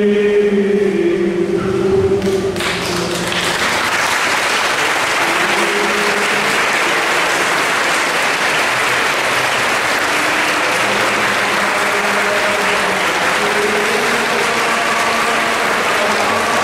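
Group singing holds a chord and fades about two and a half seconds in, as a congregation breaks into steady applause that carries on, with faint singing still under it.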